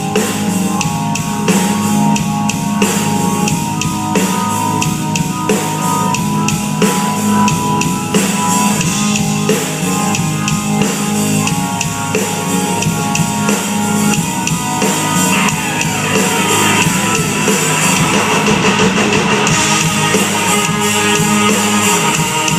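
Country-rock band playing an instrumental intro on drum kit and guitars, with a steady beat and no vocals yet.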